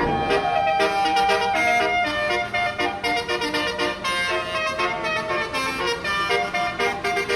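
Multi-tone telolet bus horn playing a melody, several horn notes sounding together and stepping from pitch to pitch.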